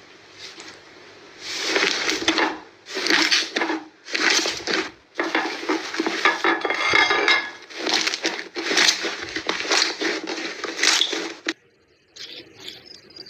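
Slime being pressed, squeezed and stretched by hand, crackling and popping with trapped air in a run of bursts lasting about a second each. Near the end the crackling cuts off suddenly and a quieter, different handling sound follows.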